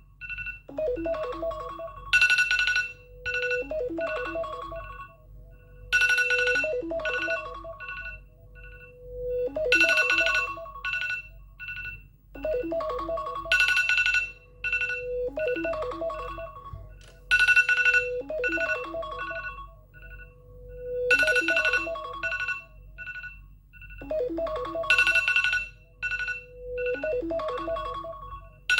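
iPhone alarm tone: a short melodic phrase of several notes, repeating about every four seconds, each pass ending on a held note that fades.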